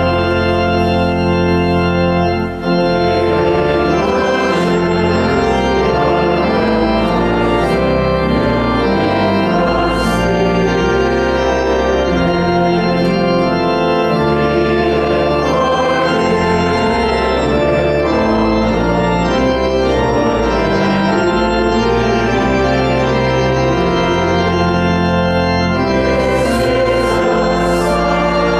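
Organ playing slow, sustained chords, the bass notes moving every second or two.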